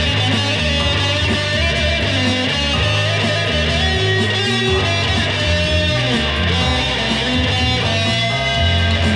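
Electric guitar playing a melodic lead line with bent notes over a full backing track, a bass line stepping from note to note underneath.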